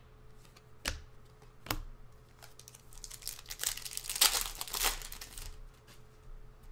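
A trading-card pack wrapper torn open and crinkled by hand, a dense crackling rustle lasting about two seconds in the second half, after two light clicks near the start.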